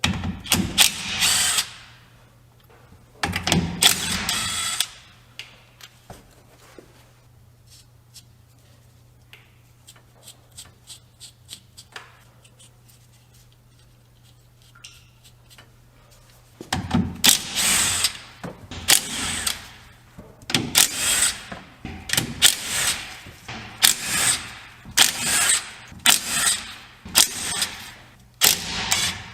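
A power tool running in repeated short bursts, as when spinning out bolts, with a quieter stretch in the middle that holds only a few light metal clicks.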